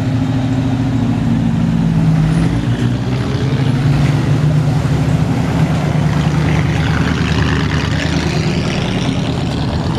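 Classic car engines running as a 1940s Chevrolet coupe and then a late-1950s Chevrolet pickup drive slowly past and pull away one after the other, with an engine note that shifts as each car moves off.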